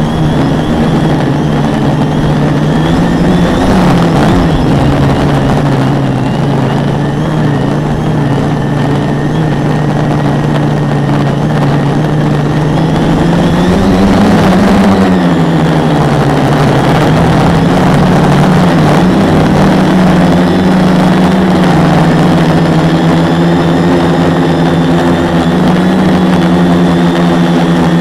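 Quadcopter's four Multistar 2212 920kv brushless motors spinning 10x4.5 propellers, a loud steady drone picked up right on the frame with a rush of air. The pitch wavers as the throttle changes, rising and dipping about halfway through, then settling.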